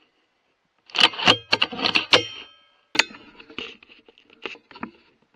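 A burst of metallic clicking and jangling about a second in, then one sharp click and lighter scattered clicks.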